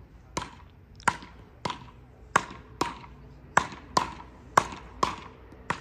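Beach racket (rakettes) rally: two paddles hitting a small ball back and forth, about ten sharp knocks at a quick, fairly even pace, each with a short ring.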